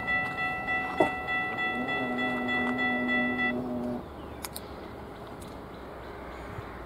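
Locomotive air horn sounding a held chord of steady notes; the higher notes stop after about three and a half seconds and the lowest note half a second later. Then faint low rumble in the open air.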